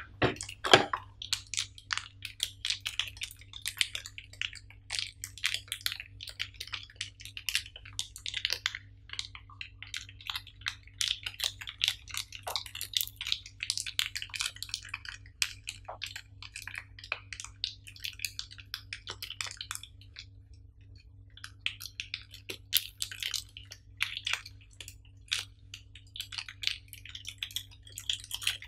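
Crinkling and rustling of a small clear plastic bag handled and opened by hand, a dense irregular crackle that pauses for about a second and a half roughly two-thirds of the way through.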